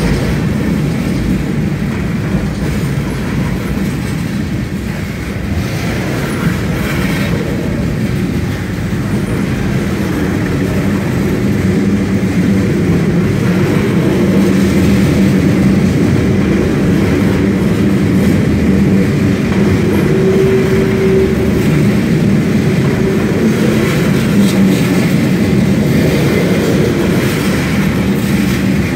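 Norfolk Southern freight train's cars, a tank car and then covered hoppers, rolling past close by: a steady rumble of steel wheels on the rails that grows somewhat louder about halfway through.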